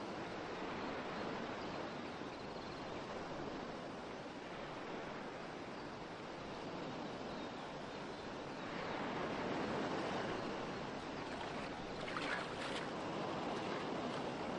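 Sea surf breaking and washing onto a sandy beach: a steady rushing that swells a little about nine seconds in.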